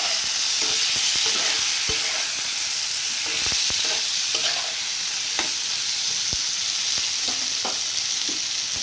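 Pointed gourd, potato and tomato pieces sizzling in hot oil in a pan while being stirred, with a utensil scraping and clicking against the pan every second or so.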